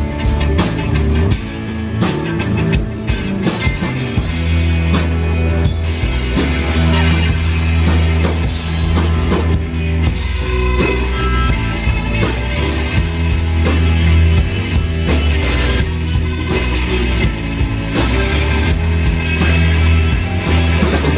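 Rock band playing live, an instrumental passage with no vocals: electric guitar, bass and drum kit.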